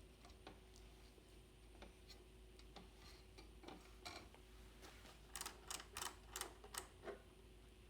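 Quiet, with scattered faint clicks, then a quick irregular run of about seven louder clicks and taps between five and seven seconds in: hands handling a tape recorder.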